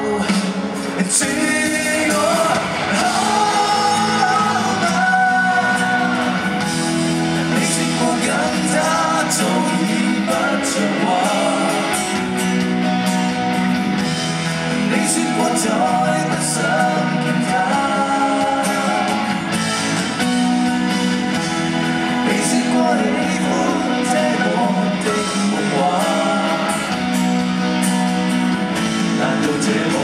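A live rock band and singers performing a Cantopop rock song, with sung melody over guitar and drums, echoing in a large concert hall.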